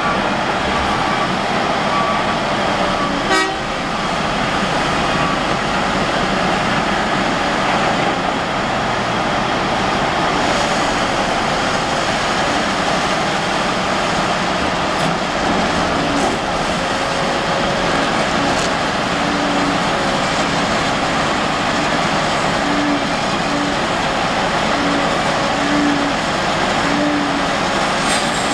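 Cat 5130 hydraulic mining excavator's V8 diesel engine running steadily under load as the machine digs and loads a haul truck. One sharp knock about three seconds in.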